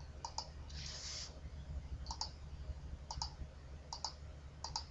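Computer mouse button clicking, each click a quick press-and-release pair, about one every second, as points of a polygon selection are placed around an area of the image. A short soft rustle about a second in, over a steady low hum.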